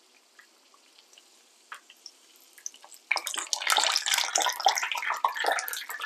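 Hot frying oil crackling and sizzling loudly from about three seconds in, as a battered potato is lifted out of the pan on a slotted spoon; before that, only faint scattered ticks.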